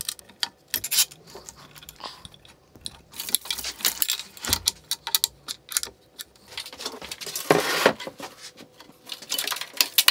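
Small tools and plastic parts being worked by hand: an irregular run of clicks, ticks and rattles from pliers, a hex key and the plastic links of a cable drag chain. A louder, longer rustling clatter comes about seven and a half seconds in.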